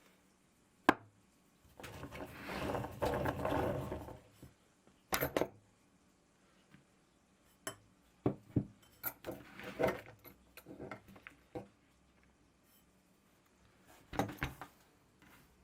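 Scattered metal clinks and knocks from a meat grinder and its parts, with a sharp click about a second in and a rough grinding rattle lasting about two seconds shortly after.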